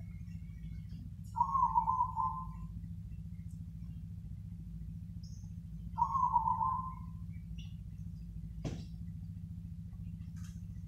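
Zebra dove (perkutut) cooing: two phrases of quick stuttering coos, each over a second long and about four and a half seconds apart, over a steady low hum. A single sharp click comes about three-quarters of the way through.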